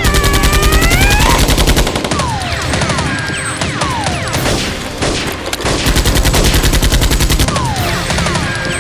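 Rapid automatic gunfire sound effects, shot after shot in quick succession, mixed with several short falling whistles.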